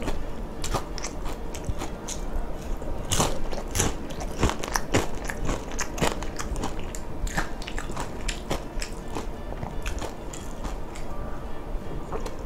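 Close-miked crunchy chewing of crispy fried chicken skin: irregular crackling crunches, several a second.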